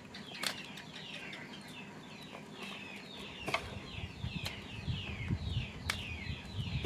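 Many birds cheeping at once: a dense run of short, falling peeps that overlap without a break. A few sharp clicks cut through, and low rumbling handling noise joins about halfway through.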